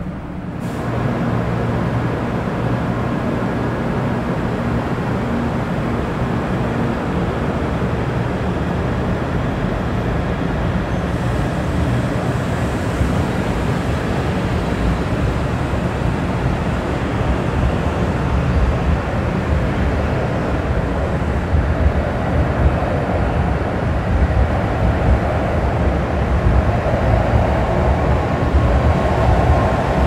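Steady hum and rush of Shinkansen trains standing at a station platform, including the air-conditioning units of a stopped 500 series train, with faint steady tones in it. The sound comes in suddenly about half a second in, and a rushing noise grows louder over the last several seconds.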